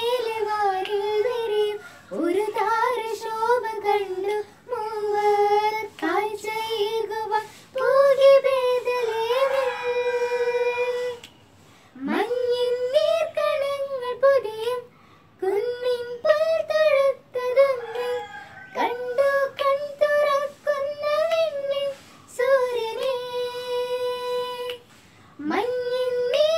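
A child singing solo and unaccompanied, a high voice in held, gliding phrases with short pauses between them.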